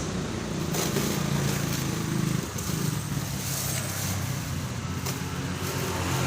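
An engine running steadily at low speed.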